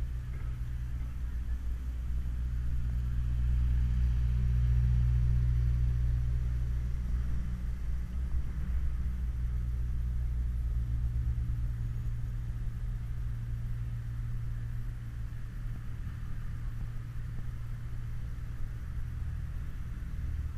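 Low, muffled rumble of city street ambience picked up by a walking GoPro's microphone, swelling a little from about three seconds in and easing after about eight.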